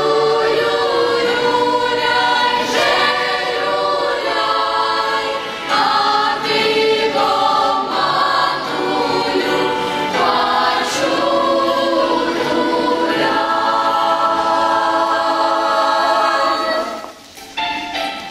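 Children's choir singing a Polish Christmas carol (kolęda) in many voices; the singing stops about a second before the end.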